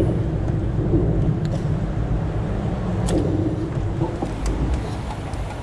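Steady low rumble of wind buffeting the camera's microphone on an open boat, with a few faint clicks and knocks as a hand rummages in the bait well.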